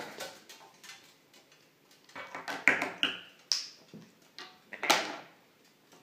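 An African grey parrot handling its trick toys: irregular clacks and rattles of plastic rings on a perch and a small wire toy shopping cart, with a brief high squeak about three and a half seconds in.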